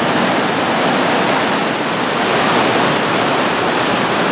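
Floodwater released from a dam rushing and churning through rapids: a loud, steady rush of turbulent water.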